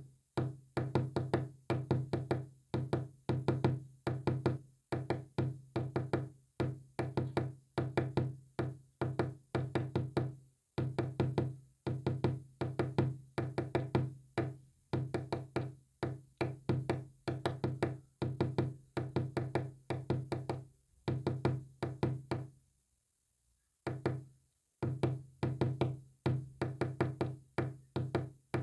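Morse code sent as a low-pitched tone, keyed rapidly on and off in short clusters, with a pause of about two seconds near the end.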